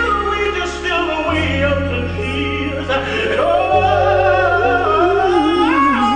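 A man singing a gospel song into a handheld microphone, his voice bending and sliding through runs with vibrato and climbing near the end, over an accompaniment of held bass notes that change about a second in and again near four seconds in.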